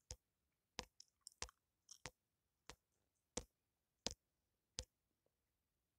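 Near silence broken by faint, sharp clicks, about ten of them at uneven intervals.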